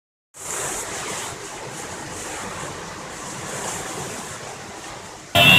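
Heavy rain in gusting wind: a steady hiss that swells and eases. It begins a moment in and cuts off suddenly near the end.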